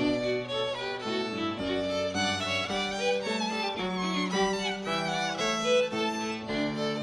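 Two violins playing a melody together, with bowed notes moving from one to the next.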